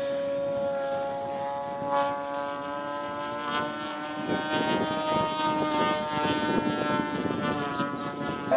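Radio-controlled model aeroplane's motor turning a wooden propeller: a steady drone of several tones whose pitch drifts slightly up and down as the plane flies.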